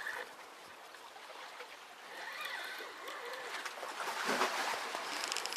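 Faint, steady hiss of sea water washing, swelling slightly about four seconds in.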